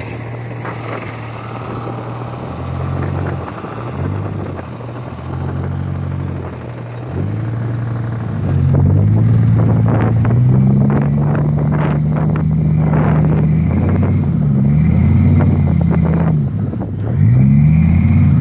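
Truck engines revving under load during a snow recovery, with a lifted pickup straining on a tow line to pull a stuck Chevrolet Blazer out of a snow-filled rut. The revs climb and drop again and again, and the sound gets louder about halfway in.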